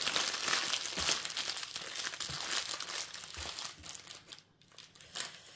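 Thin plastic packaging of a diamond painting kit crinkling and rustling as it is handled. The crackling is densest for the first three seconds or so, then thins to scattered crackles.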